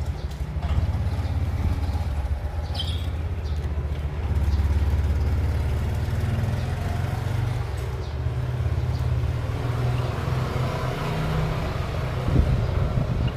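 Low, steady engine rumble of a motor vehicle running close by, swelling about four seconds in.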